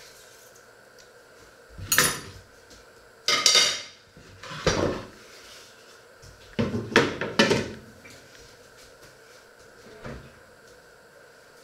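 Kitchenware being handled: a series of short clattering knocks, in bursts about two seconds in, around three and a half to five seconds, and again midway, then a single soft knock near the end.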